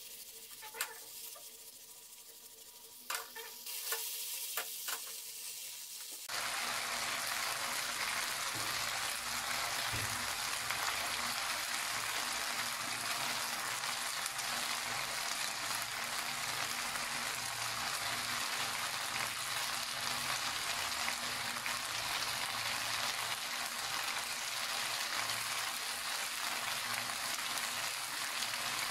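Chicken strips and sliced bell peppers sizzling in a non-stick wok, with a few knocks in the first seconds. About six seconds in the sizzle turns suddenly louder and then stays steady.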